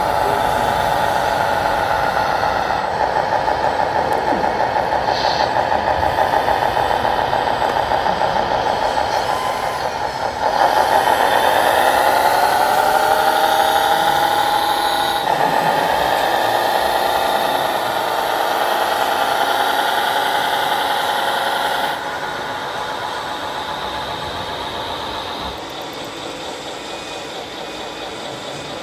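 Whine of radio-controlled model machines' electric motors, rising and falling in pitch as they speed up and slow down, with a few abrupt changes in sound.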